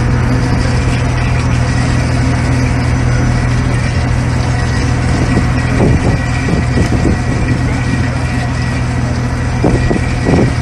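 A fishing boat's engine running with a steady low hum.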